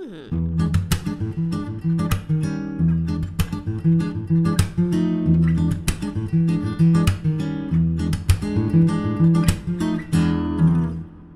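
Epiphone jumbo acoustic guitar played solo in a steady rhythm, strummed chords over bass notes with sharp percussive strokes.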